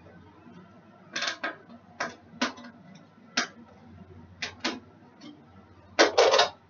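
Kitchen clatter: a handful of short, irregularly spaced knocks and clinks of dishes and utensils being handled, with a louder burst of clattering near the end.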